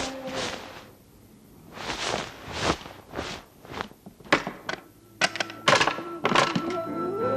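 A series of about a dozen irregular thuds and knocks, some sharp and some softer. Near the end a rising tone glides up into music.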